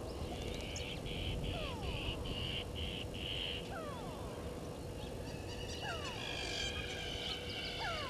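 Wild bush ambience of small birds and insects calling. A run of about six short high notes fills the first three and a half seconds, short falling whistles come and go throughout, and several high steady trills layer up from about six seconds in, over a faint steady hum.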